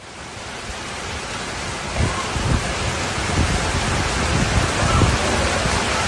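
Fast floodwater rushing down a street as a torrent, a dense, steady rush of water that swells up over the first second.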